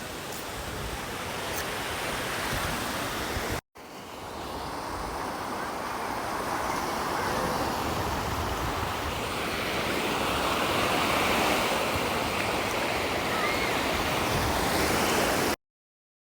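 Sea surf washing onto a sandy beach, a steady rush of water, with wind buffeting the microphone. The sound drops out for a moment about three and a half seconds in, then grows louder, and cuts off suddenly near the end.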